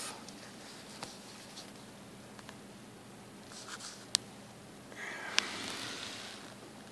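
Quiet room hiss with soft rustling from the camera being handled as it moves, and two sharp clicks, about four seconds in and again about a second and a half later.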